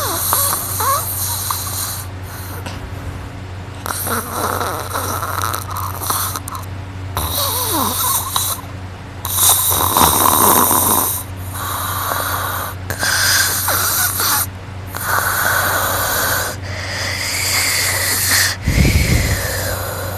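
A sleeping person snoring loudly while lying on their back, a rasping snore on each breath, about one every two seconds. A low thud comes near the end.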